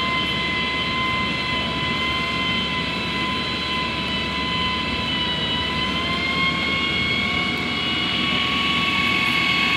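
Truck-mounted knuckle-boom crane's engine and hydraulic pump running under load as the boom moves a stone slab: a steady whine over a rumble, dipping slightly in pitch about halfway through and rising again near the end.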